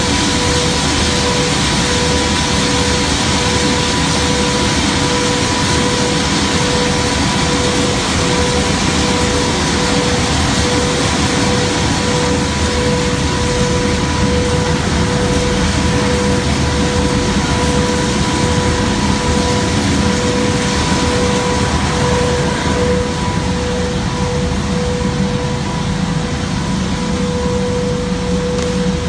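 Plastic recycling granulating (pelletizing) line running: a loud, steady machine drone with a constant mid-pitched whine.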